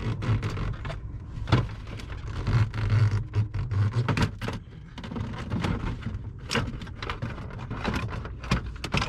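Irregular knocks, clicks and rattles of car interior trim around the handbrake being worked and pried loose by hand, over a steady low hum.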